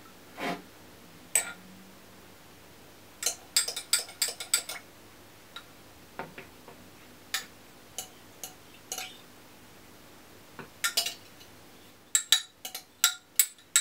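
A metal spoon clinking and tapping against a small glass measuring jug in short, scattered clusters of light strikes as a dark liquid mixture is spooned out over a bowl.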